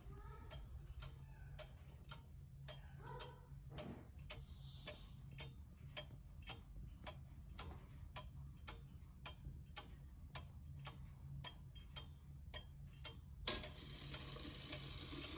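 H.A.C. Junghans eight-day pendulum wall clock ticking steadily, about two and a half ticks a second. Near the end a sudden louder rushing noise sets in.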